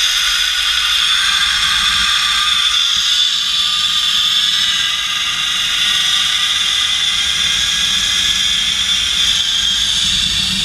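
Zip-line trolley's pulley wheels running fast along the steel cable: a steady high whine, its pitch gliding up over the first few seconds, over a low rumble.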